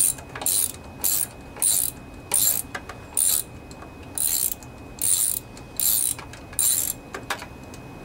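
Hand ratchet wrench clicking in short runs, about ten back-strokes a little over half a second apart, as it unscrews a spark plug; the clicking stops near the end.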